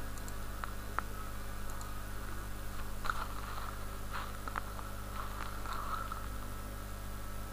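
A handful of faint computer mouse clicks over a steady low electrical hum.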